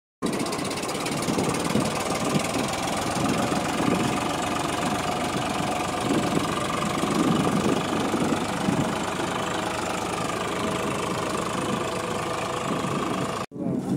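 Tractor diesel engine running steadily, its pitch wavering only slightly; the sound cuts off suddenly near the end.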